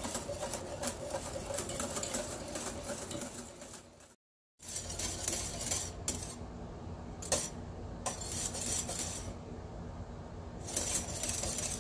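A spoon stirring and scraping a custard in a small stainless steel saucepan, with light clinks against the pan. The sound cuts out completely for a moment a little after four seconds in, then goes on more sparsely with occasional clinks before the busier stirring picks up again near the end.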